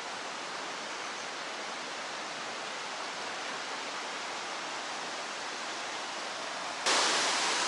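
Fast-flowing river rushing, a steady even roar of water that gets louder and brighter about seven seconds in.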